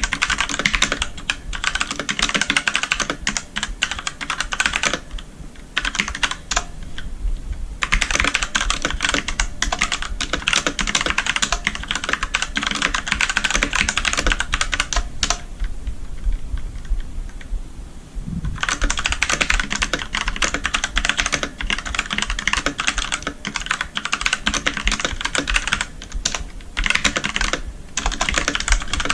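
Redragon Ratri K595 mechanical keyboard with Outemu Black switches being typed on in fast runs of clacking keystrokes. The typing pauses for about three seconds about five seconds in and again just past halfway.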